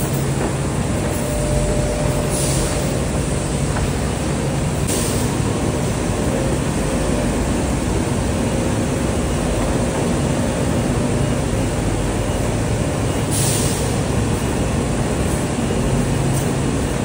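Steady din of an industrial bread moulder and pan conveyor running, with a low hum and a faint steady tone under the rattle of metal bread pans. Brief hisses come about two, five and thirteen seconds in.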